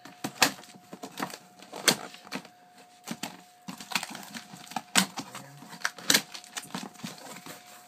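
Packing tape on a cardboard shipping box being slit and the flaps worked loose: irregular sharp snaps and crackles of tape and cardboard, the loudest about half a second, two, five and six seconds in.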